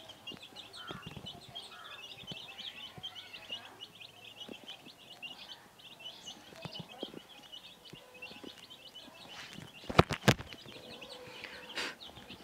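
Chicks peeping: many short, high peeps overlapping in a rapid run, thinning out after about six seconds. A few sharp knocks about ten seconds in.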